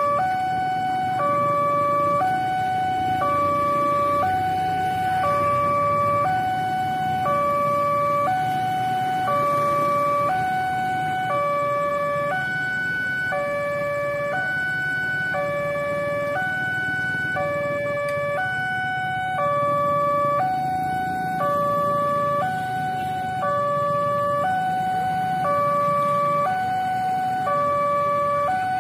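Railway level-crossing warning alarm: an electronic chime alternating between higher and lower tones in a steady repeating pattern, signalling that a train is approaching. Low road-traffic noise from passing motorcycles and vehicles lies underneath.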